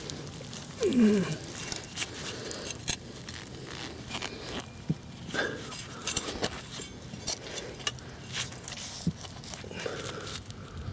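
Digging in garden soil around a large sweet potato: irregular scrapes, crackles and knocks. About a second in there is a brief sound falling in pitch, the loudest moment.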